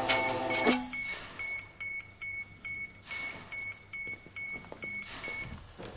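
Electronic beeping: short high beeps repeating about two and a half times a second. A steady hum under the beeps cuts off less than a second in.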